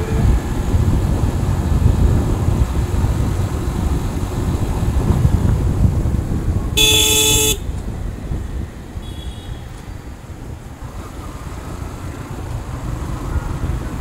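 Wind and road rumble from a moving motorcycle in city traffic, with one short vehicle horn blast about seven seconds in; the rumble drops off after the horn.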